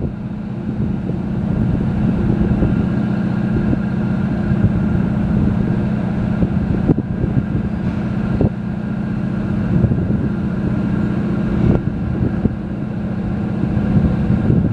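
The Seastreak Commodore catamaran ferry's diesel engines running under way, a steady low drone, with wind buffeting the microphone.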